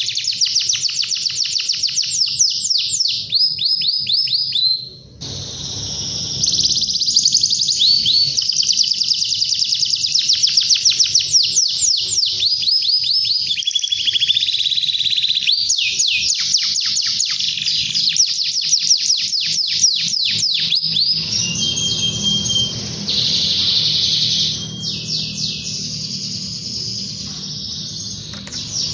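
Domestic canary singing continuously: long runs of rapid trills and fast repeated high sweeping notes, broken by a few held whistled tones, with a brief break about five seconds in.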